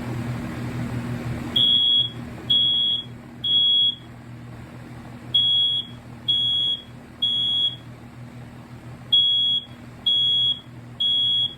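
Smoke alarm sounding its test in the temporal-three evacuation pattern: three loud, high-pitched beeps, a pause, then three more, repeated three times, starting about a second and a half in. A faint steady low hum runs underneath.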